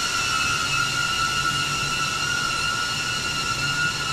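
DJI Avata FPV drone's ducted propellers whining steadily at a constant high pitch as the drone creeps along slowly.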